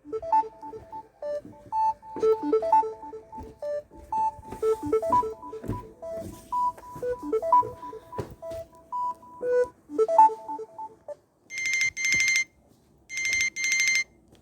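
Samsung Galaxy S10 ringtones: a tune of short notes for about eleven seconds, then two one-second bursts of a trilling telephone-bell ring.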